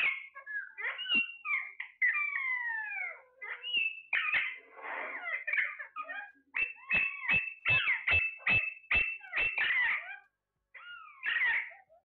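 Alexandrine parakeets calling: loud squawks and long falling calls, then a quick run of short, sharp calls about two or three a second, a brief pause, and one more squawk near the end.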